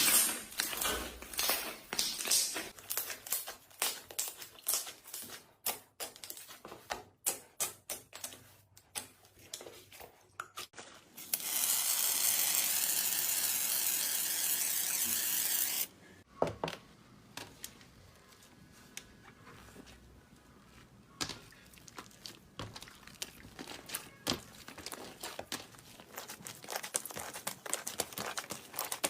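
Slime being squished and handled, giving a dense run of crackling and popping clicks. About eleven seconds in, a loud steady hiss takes over for around four seconds and then stops suddenly, after which softer, sparser crackling follows.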